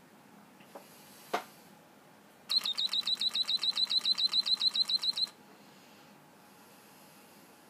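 Homemade mechanical bird-chirp box: a bellows-fed tube whistle, its pitch worked by a servo-driven rod, gives a fast trill of about nine high chirps a second for nearly three seconds. Two clicks of the mechanism come just before it, the second louder.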